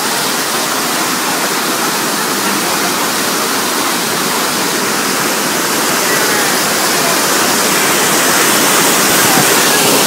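Steady rushing of fast-flowing floodwater, growing slightly louder in the second half.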